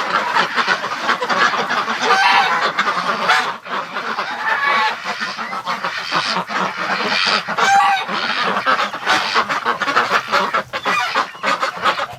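A barn flock of domestic ducks and geese calling nonstop, loud quacking and honking overlapping into one noisy chorus.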